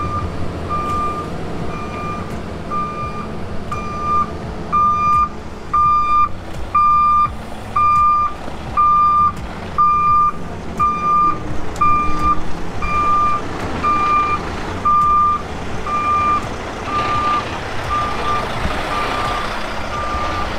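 Backup alarm on heavy equipment beeping steadily about once a second, loudest in the middle, over the low running of diesel engines as a grapple skidder hauls a bogged-down log truck's trailer through the mud.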